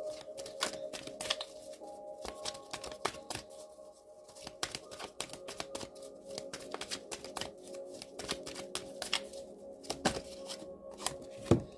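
A deck of oracle cards being shuffled by hand: a quick, uneven run of flicks and riffles of the cards, with one sharper tap near the end. Soft background music with held tones plays underneath.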